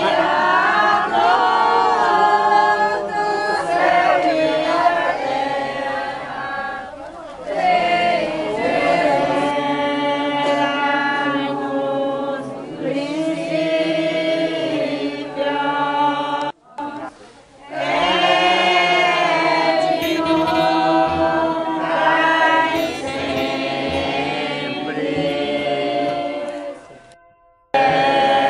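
A group of voices singing a religious hymn together, in long held phrases. The singing breaks off briefly about two-thirds through and again near the end.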